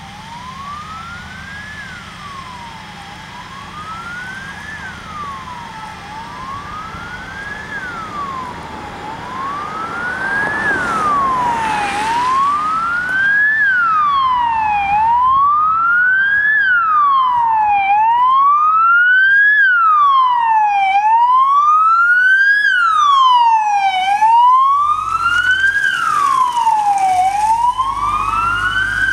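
Emergency vehicle siren wailing, a slow rise and quicker fall about every three seconds, getting louder as it approaches. Near the end a second siren overlaps, out of step with the first.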